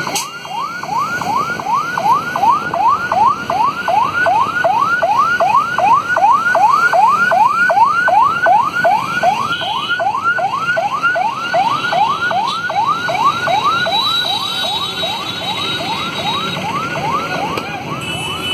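Emergency vehicle siren sounding in a fast yelp, its pitch sweeping up and down a little more than twice a second, steady throughout and easing slightly near the end.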